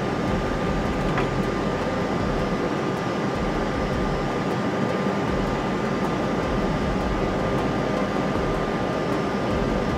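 Steady cockpit noise of an Airbus A320 in flight on approach: a constant rush of airflow and air conditioning, with a thin steady high tone running through it.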